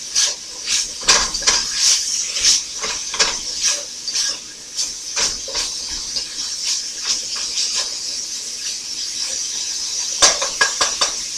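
Ground beef, onion and celery sizzling in a cast iron skillet while a slotted spatula scrapes and stirs through them in repeated strokes, roughly two a second. There are a few sharper knocks near the end.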